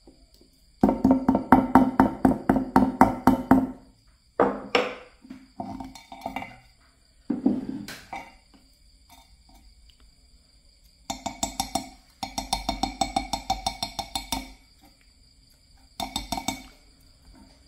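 Small hammer tapping copper wire against a wooden block: quick runs of many light, ringing taps, with a few single knocks and pauses between the runs.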